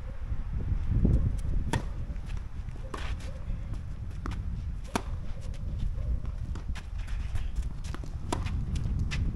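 A tennis rally: sharp, irregular pops of the ball struck by racquets and bouncing on the court, with scuffing footsteps, over a steady low rumble.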